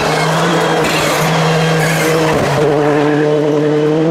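Citroën C3 rally car's turbocharged four-cylinder engine running hard at full throttle, its note held steady and dipping briefly twice, about a second in and again about two and a half seconds in, as the car comes through a tight bend.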